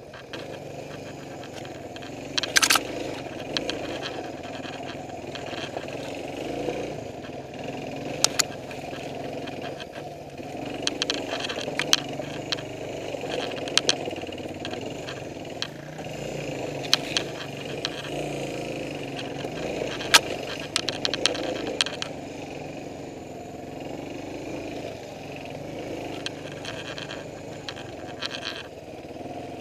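Suzuki DR350's single-cylinder four-stroke engine running while riding a rough dirt trail, its note wavering up and down with the throttle. A scatter of sharp clacks and knocks from the bike going over rough ground, the loudest about three seconds in and again around twenty seconds in.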